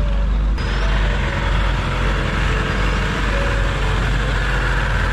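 Shikara canal boat's motor running steadily under way. The sound turns brighter and hissier just over half a second in.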